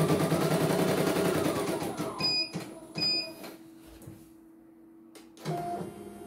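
CNY E900 computerized embroidery machine stitching with a rapid, steady clatter that winds down and stops about two seconds in. It gives two short high beeps, a steady low hum follows, and stitching starts up again near the end.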